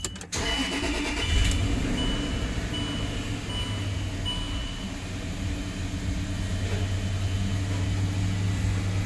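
Land Rover LR3's 4.4-litre V8 starting, then idling with a little roughness at first before it smooths out, after a new injector has gone into cylinder 7 to cure a misfire. A repeating beep sounds during the first few seconds.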